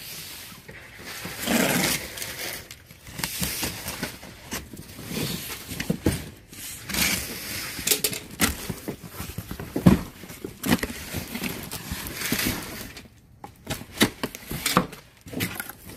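Box cutter slicing through packing tape on cardboard boxes, with tape tearing and cardboard flaps scraping and rustling as the boxes are pulled open: a run of uneven scrapes and sharp clicks.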